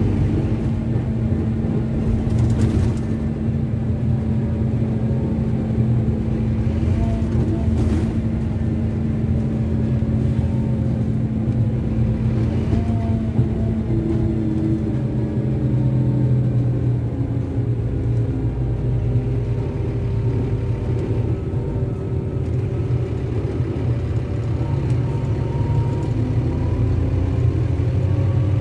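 Scania K310 bus's rear-mounted five-cylinder inline diesel engine running with a deep rumble, its pitch drifting and changing as engine speed varies.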